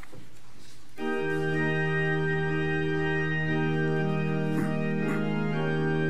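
Organ playing the introduction to a congregational hymn. It enters about a second in with sustained chords that shift a few times, leading into the singing.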